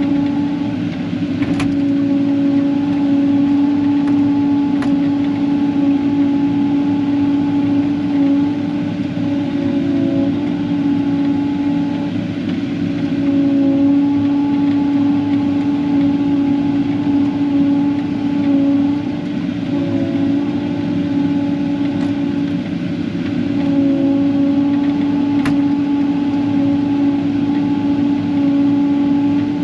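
Engine running steadily at a constant speed, giving a strong, even hum that swells and eases slightly, with a few faint ticks.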